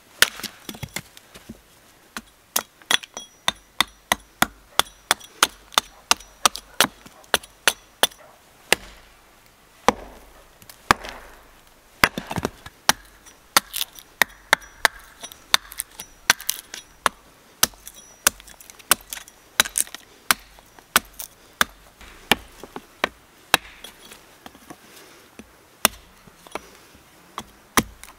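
Hatchet chopping and splitting a short log section on a chopping stump: dozens of sharp blows of the blade into wood, about one to two a second, some in quick runs, with small crackles of wood splitting between them.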